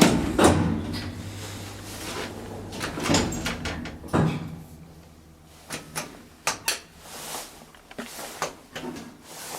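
Elevator car knocks and clicks: a door-like bump near the start, more knocks about three and four seconds in, and a quick run of sharp button or relay clicks about six seconds in, over a low steady hum in the first half.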